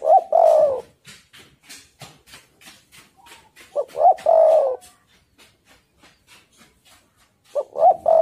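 Caged spotted dove (tekukur) cooing: three phrases about four seconds apart, each two short notes followed by a longer, falling note.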